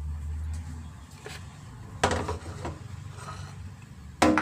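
A ceramic bowl and dishes handled on a kitchen counter: a few knocks and scrapes, the loudest near the end, over a low hum.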